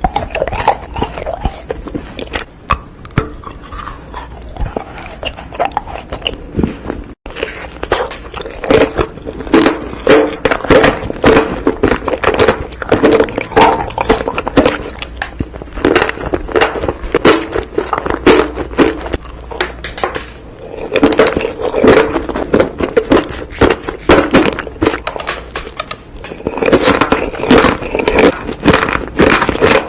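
Close-miked eating: biting and chewing, with many quick, irregular crunches and wet clicks. There is a sudden cut about seven seconds in, after which the chewing goes on denser and louder.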